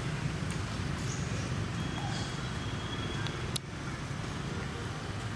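Steady low rumble of outdoor background noise, with a faint thin high tone and a few faint high chirps, and one sharp click about three and a half seconds in.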